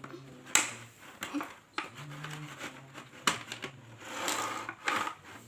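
Toy packaging being handled and opened: sharp plastic clicks and knocks about once a second, with a burst of crinkly rustling near the end.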